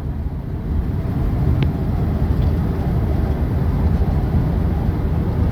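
Steady low road and engine noise of a vehicle travelling at highway speed, heard from inside the moving vehicle.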